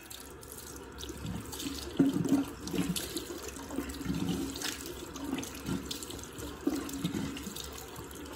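Water running from a bathroom sink tap, with uneven splashing as facial cleanser is rinsed off the face by hand.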